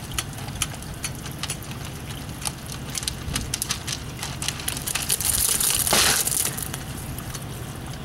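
Dual-component dispensing gun being pumped, its trigger and plunger mechanism giving a run of irregular sharp clicks while two-part polyurethane grout is injected into water-filled gravel, over steady running water. About five seconds in, a loud hiss rises, peaks and fades.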